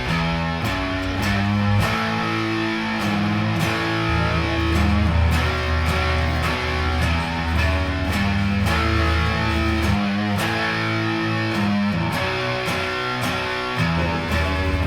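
Electric guitar played on the neck pickup of a Jaguar through the Hill Giant One Knob Fuzz pedal, into clean Vox AC15C1 and Fender Princeton Reverb amps with no reverb. A picked riff of held, fuzz-thickened notes moves between low and higher pitches.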